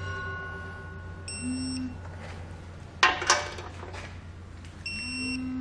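Electronic torque wrench beeping twice, each beep about half a second long, as a bolt reaches its set torque. About three seconds in there is a short, loud metallic clatter of the wrench and socket against the bolts.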